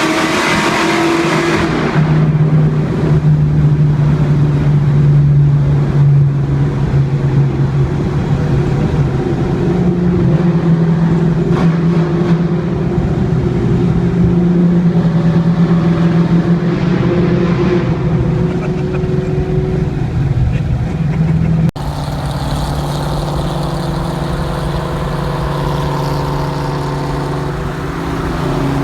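The Mustang's supercharged V8 engine driving: a loud rush of acceleration at the start, then a steady engine note that steps up and down in pitch. It breaks off sharply about 22 seconds in, and a similar engine note follows.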